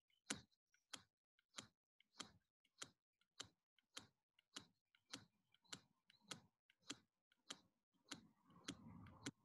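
A steel sewing needle stroked again and again across a small disc magnet, the same direction each time, to magnetize it: a faint click with each stroke, evenly paced at a little under two a second, with a soft rustle near the end.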